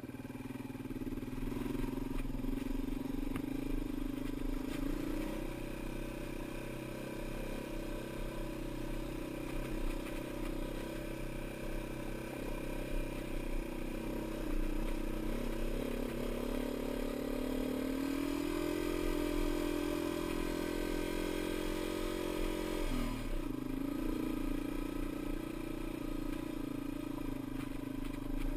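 Dirt bike engine running while riding, its pitch rising and falling with the throttle. It climbs steadily for several seconds past the middle, then drops suddenly a few seconds before the end.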